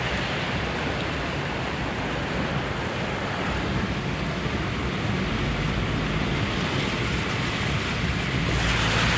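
Car driving through standing floodwater, heard from inside the cabin: a steady rushing hiss of tyres churning and spraying water.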